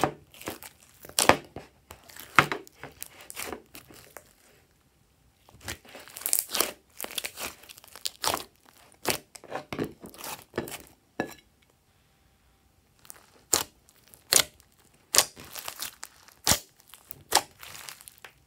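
Hands squeezing, folding and stretching glossy slime with foam beads mixed in: sticky crackling pops and squishes in irregular bursts, with two short pauses, about five and twelve seconds in.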